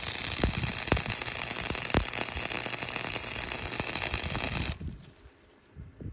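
Electric arc welder laying a bead, building up extra metal on the steel shank of a garden hand trowel: a steady crackling hiss with scattered pops that stops abruptly more than a second before the end.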